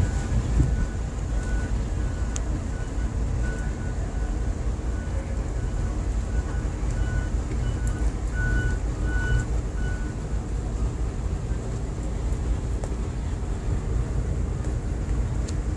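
Tugboat's diesel engine running steadily, a low rumble heard from the tug's foredeck. A faint high electronic beep repeats at even spacing through roughly the first ten seconds.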